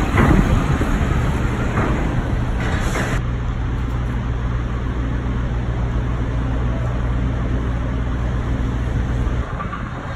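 A large box truck's engine running as it drives slowly past close by. About three seconds in, this gives way to a steady low engine hum, which fades near the end.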